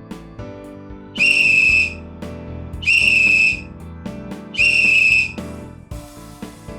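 Three short, loud whistle blasts at one steady high pitch, about a second and a half apart, over background guitar music.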